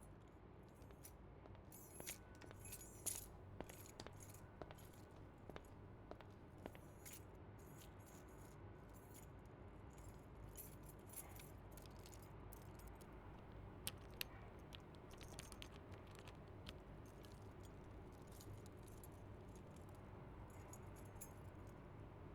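Faint, scattered small clicks and light metallic clinks, in little clusters, over a low steady hum.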